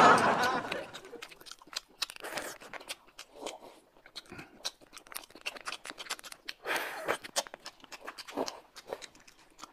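Close-up eating sounds: the crackling of a small plastic snack wrapper being opened by hand, with short slurps of hot and sour noodles and some chewing.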